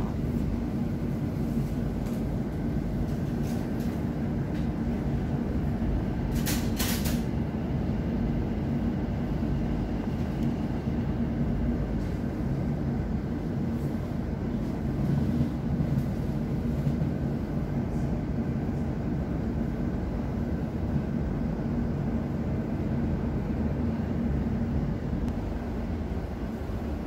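London Overground Class 710 electric train running at speed, heard from inside the carriage: a steady low rumble and hum. About six seconds in there is a short burst of sharp clicks and knocks.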